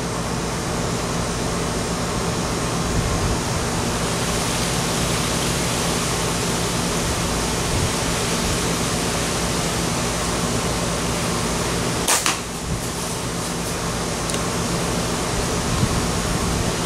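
Steady hiss with a low, even hum underneath, broken by one sharp click about twelve seconds in.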